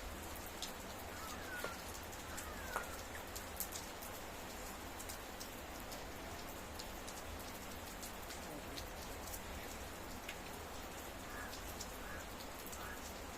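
Steady rain falling, with individual drops ticking sharply on a surface, and a few faint short chirps near the start and again near the end.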